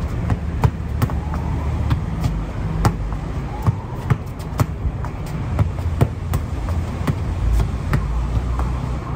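A football being tapped and kicked about with the feet: sharp, irregular knocks about once or twice a second. Under them runs a steady low rumble of city traffic.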